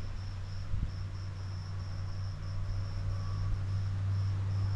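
Insects trilling steadily in a high-pitched, slightly broken buzz, over a steady low hum.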